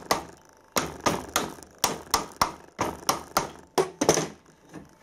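A run of sharp metal-on-metal taps, about three a second, stopping about four seconds in: light hammer blows seating the main bearing caps over a steam engine crankshaft.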